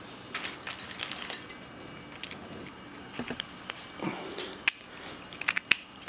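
Hands handling a padlock and looking for its steel key: scattered small clicks, taps and rustling, with one sharp click a little before the end and a quick run of clicks just after it.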